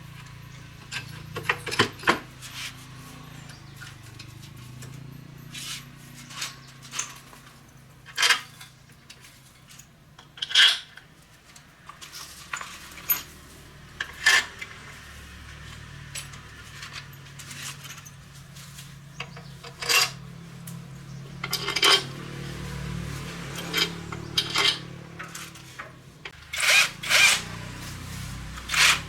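Metal hand tools and parts clinking and knocking at irregular intervals, a series of sharp clicks, over a steady low hum.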